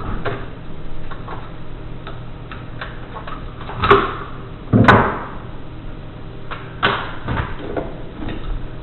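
Clicks and knocks of hands working on a plastic RC truck chassis during a teardown, with louder clattering knocks about four, five and seven seconds in.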